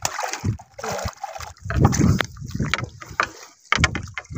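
Water splashing and sloshing in irregular bursts, with low rumbling knocks loudest a little under two seconds in.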